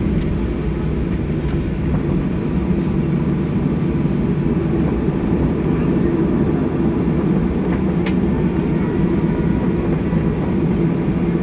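Cabin noise of a jet airliner taxiing: a steady low rumble of the engines and the wheels rolling, with a faint steady whine above it.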